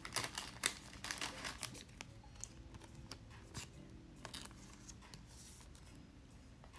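Faint clicks and rustles of baseball cards being handled and flipped through, densest in the first two seconds, then a few light ticks.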